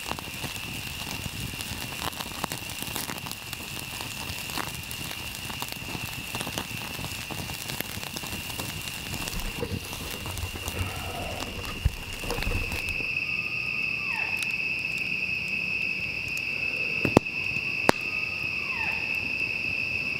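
Campfire crackling and popping over a steady high chorus of night insects. About thirteen seconds in the crackling stops and the insect chorus grows louder, with a short falling animal call repeating every few seconds and two sharp clicks.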